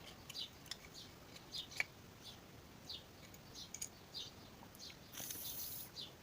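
Small metal clicks and taps of tools and parts as the idle jet is taken out of a Honda Dio scooter's carburetor, with a bird chirping over and over in the background. A short hiss comes near the end.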